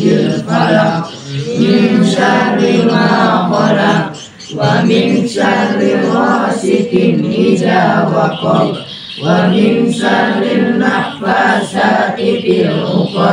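A group of voices chanting an Islamic recitation together in unison, in long phrases broken by brief pauses for breath.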